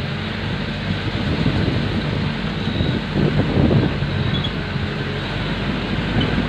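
Small truck's engine running as it drives along a rough dirt road, heard from the back of the truck, with gusts of wind on the microphone now and then.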